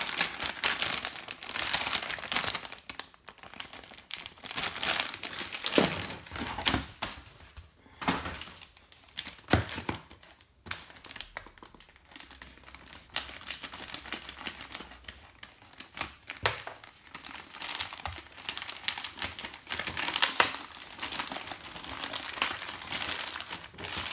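Plastic packaging crinkling and rustling as it is handled, with a plastic courier mailer being torn open. A few sharp knocks are heard along the way.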